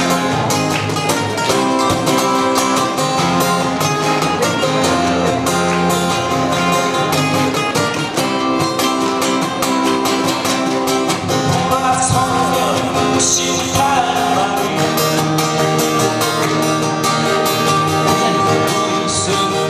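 An ensemble of acoustic guitars strumming and picking chords together in a steady rhythm, playing a song.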